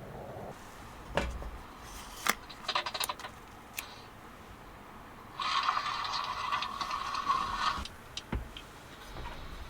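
Handling noises: several sharp clicks and knocks, then a rasping scrape lasting about two and a half seconds, followed by a couple more clicks.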